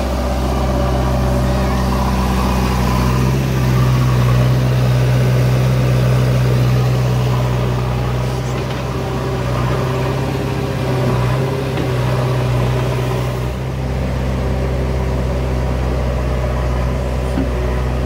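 Diesel engine of a JCB 3DX backhoe loader running steadily as the machine loads soil, a deep even hum.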